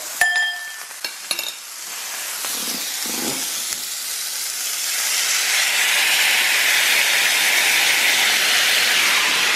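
A short beep and a few knocks near the start, then sauce poured into the hot frying pan around the steak, setting off loud sizzling that swells about five seconds in and holds steady.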